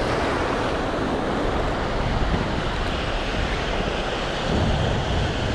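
Ocean surf washing onto the beach with wind buffeting the microphone: a steady rushing noise with a low rumble that swells slightly near the end.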